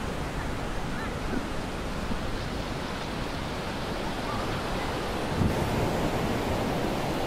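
Sea surf washing onto a sandy beach, a steady rushing noise with wind buffeting the microphone; it gets a little louder about five and a half seconds in.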